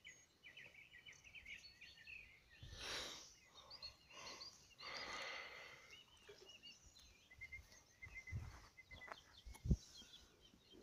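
Small birds chirping and singing, in many short high calls, with a couple of brief rustling noises and a low knock near the end.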